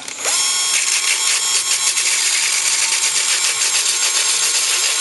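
Cordless drill with a sanding disc buffing the face of a brake rotor, roughening the surface to take new pads. It starts with a rising whine as the motor spins up, then runs as a steady whirr and scratchy hiss of abrasive on metal.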